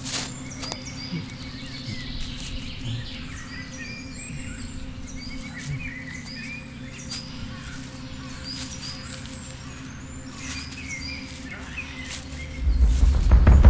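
Woodland ambience of small birds chirping, with scattered sharp clicks and a faint steady low hum. About a second before the end a loud low rumble swells in and becomes the loudest sound.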